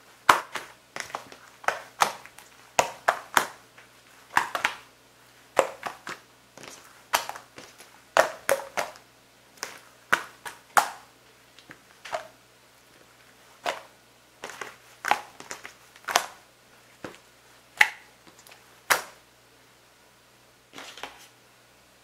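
Glossy green slime squeezed and kneaded by hand, giving irregular sharp, wet pops and clicks, about one or two a second, sometimes in quick clusters, fewer near the end.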